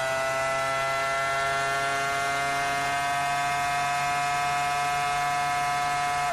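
Renault R24 Formula One car's 3.0-litre V10 engine at high revs, heard onboard, its high whine climbing slowly and steadily in pitch as the car accelerates flat out along the straight.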